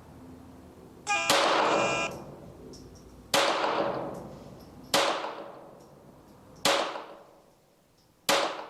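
.22 LR CZ 75B pistol with a Kadet conversion, fired in a rapid-fire string: a pitched start tone lasting about a second comes about a second in, then four shots follow, about 1.6 to 1.7 seconds apart, each ringing out briefly.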